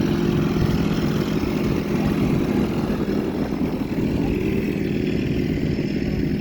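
Motor vehicle engine running steadily, a continuous low drone.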